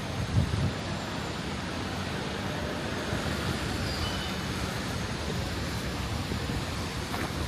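City street traffic noise: a steady rumble of passing vehicles.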